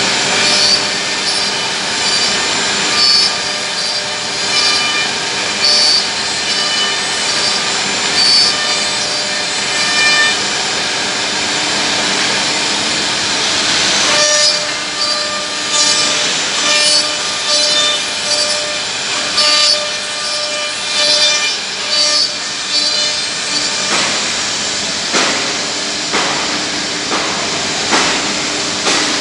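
Four-spindle CNC mortising machine cutting mortises in wooden slats: the router spindles run with a steady whine, and short bursts of cutting noise come roughly once a second as the bits bite into the wood.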